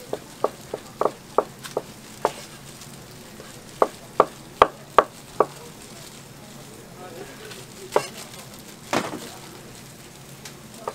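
Knife chopping through boiled pork offal onto a plastic cutting board. A quick run of sharp knocks opens it, a second run of louder knocks comes a few seconds in, and two single knocks follow later over a steady background hiss.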